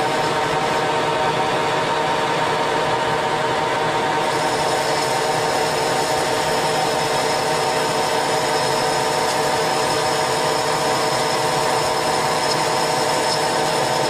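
Metal lathe running with its chuck spinning, a steady geared hum while the cutting tool turns down a metal part. A thin high whine joins about four seconds in.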